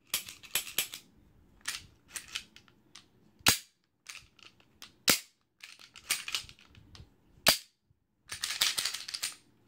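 Metal clicks and rattles from a freshly reassembled and lubricated Taurus 9mm semi-automatic pistol as its slide is worked by hand, in short bursts, with three single sharp metallic snaps spaced about a second and a half to two and a half seconds apart.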